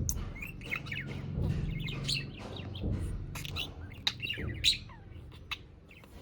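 Budgerigar chirping and chattering in short warbling calls, with a few sharp taps, the two loudest a little after four seconds in and just before five seconds in, over a low hum.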